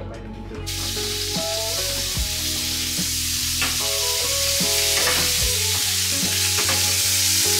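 Food sizzling in a frying pan, a steady hiss that starts suddenly about a second in, over background music with a beat.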